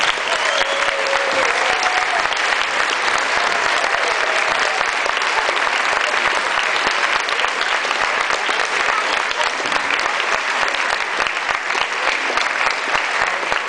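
Audience applauding steadily, a dense patter of many hands clapping, with a voice calling out in the first couple of seconds.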